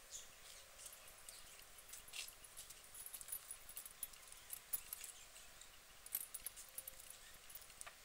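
Faint soft clicks and rustles of a white domestic duck preening, nibbling through its feathers with its bill. Faint high chirps come in about three seconds in and again about six seconds in.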